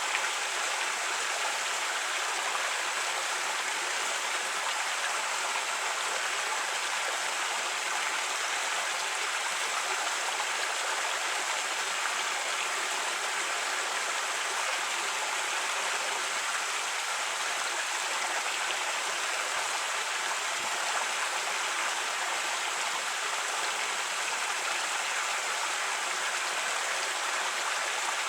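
Creek water running steadily over rocks, an even rushing babble.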